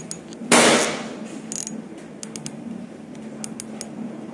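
A PCP air rifle fires one shot about half a second in, a sharp report with a short decay. Several light mechanical clicks follow over the next few seconds.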